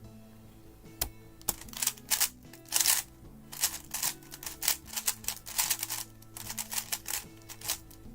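A non-magnetic GAN 11 Air 3x3 speedcube being turned fast during a timed solve: dense, irregular bursts of plastic clicking and clattering, starting about a second in and going on without a break.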